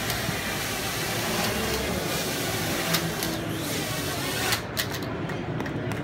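Parrot Bebop 2 quadcopter drones on the floor whirring with a steady motor hiss that drops away about four and a half seconds in, over crowd chatter.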